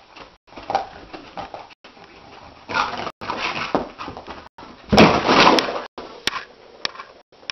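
A dog making noises in short, irregular bursts as it rolls and squirms on its back on a carpet, with the loudest burst about five seconds in.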